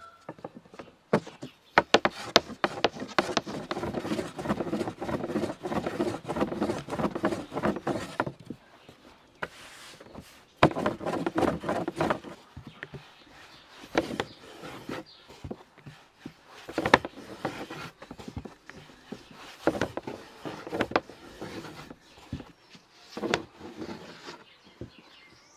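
Wooden rolling pin rolling dough out thin on a wooden board: a long spell of rolling with sharp knocks of the pin in the first several seconds, then shorter strokes with pauses between them.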